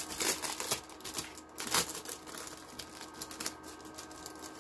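Plastic packaging crinkling and rustling as it is handled, with the loudest crackles in the first two seconds and fainter ones after.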